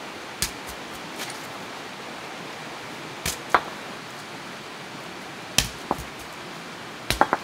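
Steady rush of a forest stream, with a scattering of sharp knocks and clicks: a few singly, then three close together near the end.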